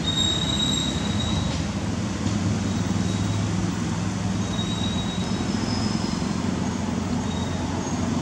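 Steady low rumble with a mechanical hum, and short thin high-pitched tones that come and go.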